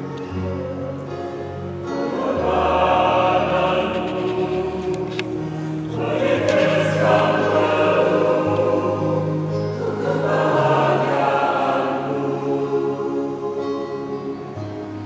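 A choir singing slowly in long, held chords over a low accompaniment.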